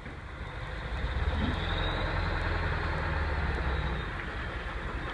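Ford F-650 dump truck's engine running under a load of rocks. The low rumble grows louder about a second in, holds, then eases slightly near the end.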